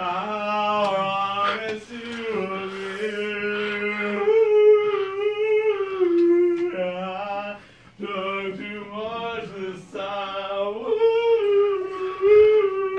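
A voice singing long, wavering held notes in several drawn-out phrases, the pitch sagging at the ends of some, with a lower steady note sounding under part of them.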